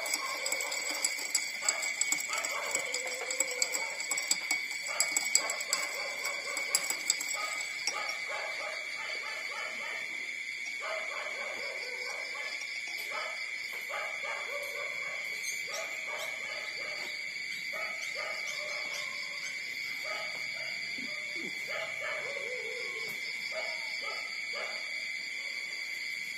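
Newborn puppies whimpering and squeaking in short, wavering calls while nursing, with a run of sharp clicks during the first eight seconds or so. A steady high-pitched whine runs underneath.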